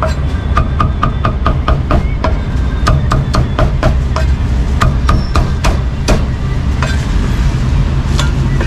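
Cleaver chopping roast meat on a wooden chopping block: rapid, regular knocks, several a second, thinning out to occasional strikes after about five seconds.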